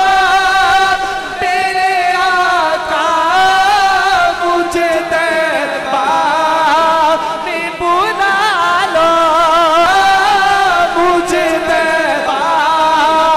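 A man singing a Punjabi naat into a microphone in long, wavering held notes, the melody sliding up and down without clear words.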